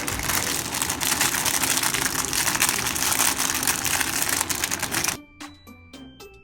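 Many small plastic toy frogs clattering and rattling together, a dense run of fast clicks, as the pieces are tipped or rummaged through. It cuts off suddenly about five seconds in, and light music with plinking notes follows.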